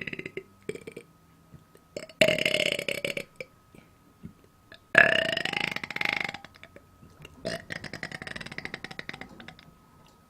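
A woman belching into a close microphone: a few short little burps at first, then two loud belches of a second or so each, and a quieter, drawn-out, ragged one near the end.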